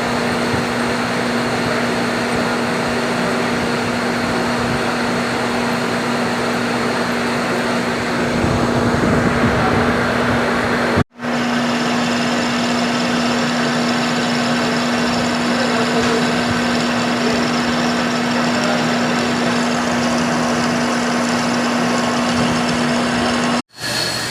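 Machine tool running steadily with a constant hum while metal is machined. It grows louder and rougher for a few seconds before breaking off abruptly, then resumes and breaks off again near the end.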